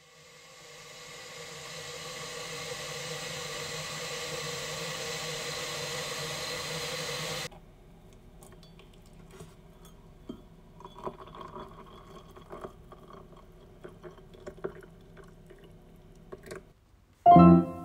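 Hot water poured from an electric kettle into a glass mug over a tea bag: a steady stream that grows louder, then stops suddenly about seven and a half seconds in. Faint small taps and rustles follow as the tea bag is moved in the mug, and piano music comes in loudly just before the end.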